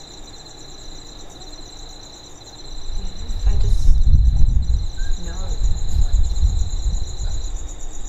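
Crickets chirping steadily in a continuous high trill. About three seconds in, a loud low rumble comes in and carries on unevenly, far louder than the chirping.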